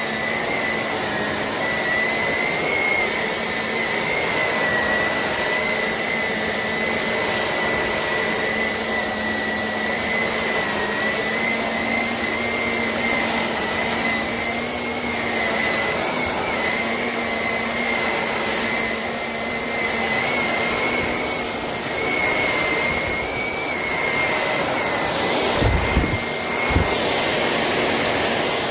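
Shark NV360 Navigator upright vacuum running steadily over indoor-outdoor carpeting, a continuous rush of suction with a steady high motor whine. Two short knocks sound near the end.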